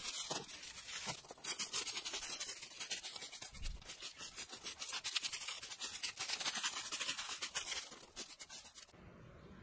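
Rake dragged through dry leaf and bark litter on the ground, a quick run of rough scraping strokes. It stops suddenly near the end.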